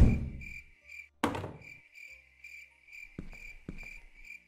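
Cricket chirping sound effect, a steady run of short high chirps at about three a second, the cartoon cue for an unanswered call and silence. A loud thud comes right at the start and another about a second and a half in, with two fainter knocks later.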